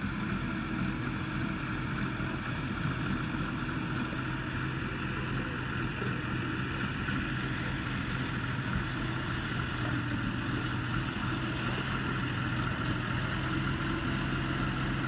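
A large engine running steadily at a constant speed, with a continuous hum and rumble.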